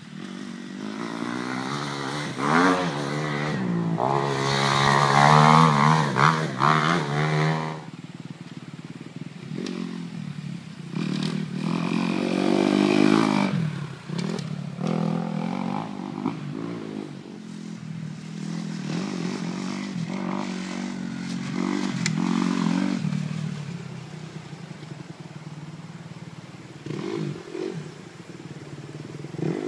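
Motocross dirt bike engines revving up and easing off over and over as the bikes ride the track and take jumps. The loudest run of revving, with rising pitch, comes about four to eight seconds in.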